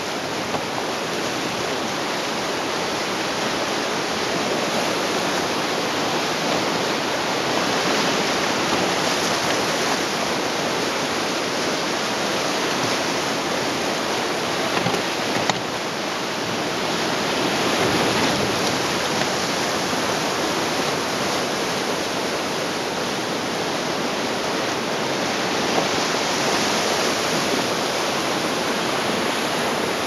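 River whitewater rapids rushing and churning around an inflatable raft as it rides through them: a steady, loud rush of water that swells a little now and then.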